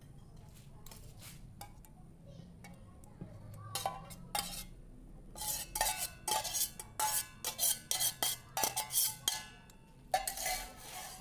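Kitchenware clinking and knocking: a utensil striking a dish in a quick series of short clinks, starting faintly about three seconds in and coming thick and fast through the middle.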